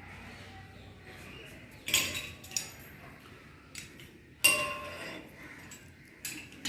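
Metal objects clinking and knocking together: a few sharp impacts, each with a brief ring. The loudest come about two seconds in and about four and a half seconds in, with lighter clinks between them and near the end.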